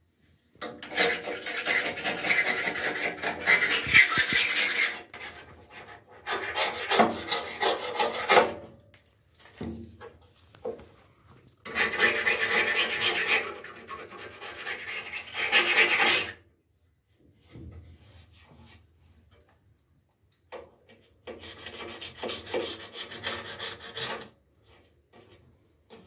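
A flat metal hand tool scraping hard over the inside of an automatic washing machine's outer tub, rasping in several long bouts of quick strokes with short pauses between.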